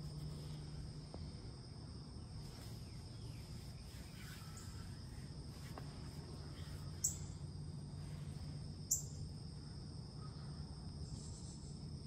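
Insects calling outdoors: a steady high-pitched trill that goes on without a break. Two short sharp clicks come about seven and nine seconds in.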